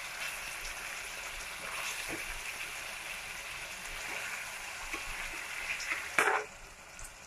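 Spiced fish-curry gravy simmering and hissing in an aluminium kadai, with a few light taps of a metal spatula against the pan and a louder knock about six seconds in.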